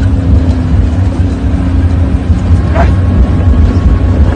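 Vehicle engine running with a steady, loud low rumble, with a brief higher-pitched sound about three seconds in.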